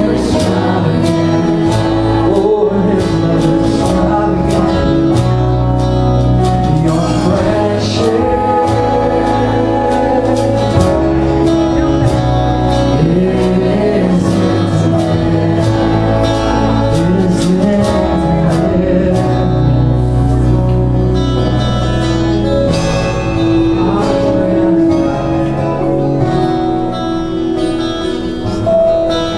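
Live worship song: a man and a woman singing, with a strummed acoustic guitar and band accompaniment.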